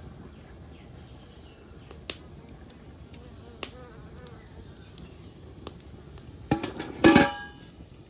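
Wood fire burning under a metal cooking pot, with a low steady rush and occasional sharp crackles. Near the end comes a louder cluster of snaps together with a short pitched sound.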